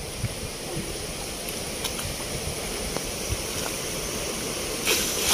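Water of a shallow stream with a person wading through it shin-deep, the water sloshing around the legs; a louder splash near the end.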